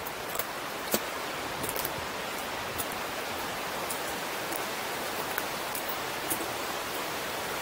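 Steady rushing of the Niagara River's whitewater rapids, with a few light clicks and crunches of footsteps on the rocky trail.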